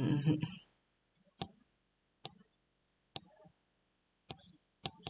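A stylus tapping on a tablet's glass screen: about five sharp, separate taps roughly a second apart.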